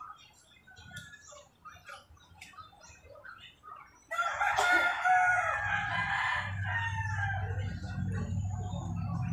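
A rooster crows once, loud and drawn out, starting about four seconds in and lasting about three seconds. A low steady hum comes in during the crow and carries on.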